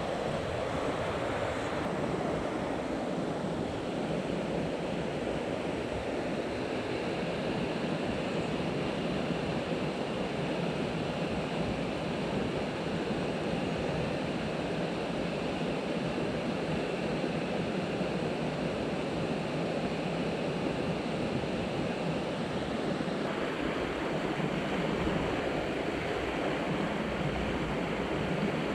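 Mountain stream water rushing steadily over rocks, a constant, even roar of running water.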